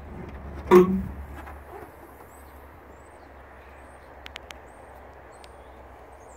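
A car bonnet being opened: one loud metallic clunk with a brief ring about a second in as the panel is released and lifted, then a few faint clicks.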